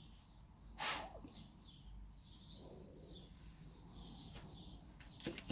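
One short, hard puff of breath blown through a straw about a second in, blasting a pool of wet acrylic paint outward across the canvas. Birds chirp faintly throughout.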